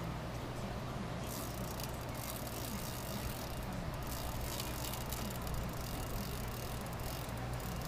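Fishing reel being cranked and ratcheting while a hooked sturgeon is played, over a steady low hum.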